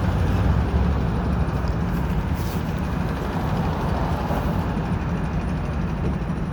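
Steady street traffic, a low rumble of passing vehicles.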